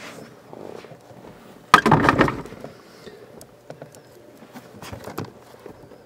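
Hands working a blower motor into its housing under a van's dash, with light clicks and scraping of parts and one loud clatter about two seconds in.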